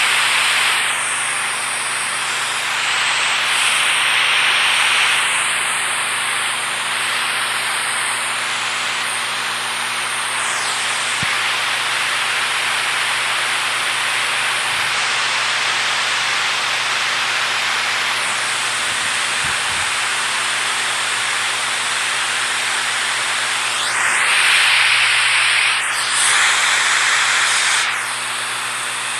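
Rushing water making a steady, dense hiss that swells slightly a few times.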